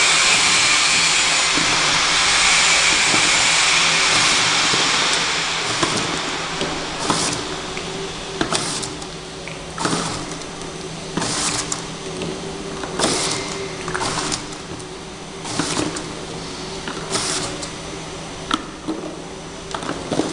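Automatic flat-surface labelling machine running: a steady hum with a loud hiss for about the first five seconds, then a short burst about every one and a half seconds as the stepper-driven label head feeds a label onto each passing item.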